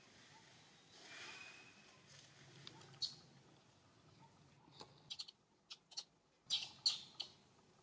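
Newborn macaque giving faint, short high squeaks. They are sparse at first, then come several in quick succession in the second half.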